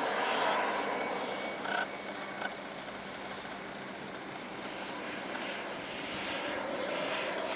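Radio-controlled model turbine jet flying past overhead, its engine a steady rushing whoosh. The whoosh eases off in the middle and swells again near the end.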